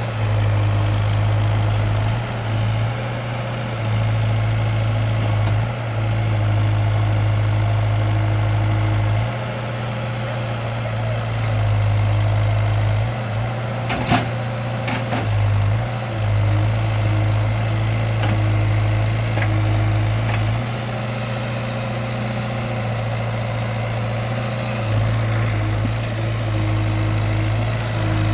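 Case backhoe loader's diesel engine working hard, its low note swelling for a few seconds at a time and dropping back, again and again, as the stuck machine is driven to free itself. A single sharp knock about halfway through.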